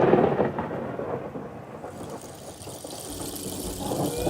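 A deep rumbling noise, loud at first and dying away over about two seconds to a low steady rumble.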